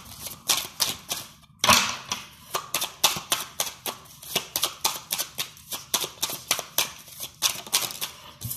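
Deck of tarot or oracle cards being shuffled by hand: a quick run of card clicks and snaps, about four a second, with a louder rustling swish about two seconds in.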